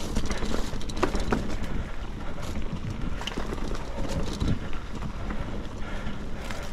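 Mountain bike riding a dirt forest singletrack: tyre and drivetrain noise with wind on the microphone, broken by short rattles and knocks as the bike goes over bumps.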